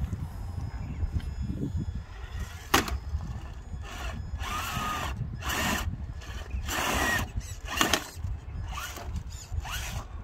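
Traxxas Defender RC crawler's electric motor and gearbox whining in short bursts as the throttle is blipped, several times in the second half, some bursts rising in pitch. A steady low rumble sits underneath.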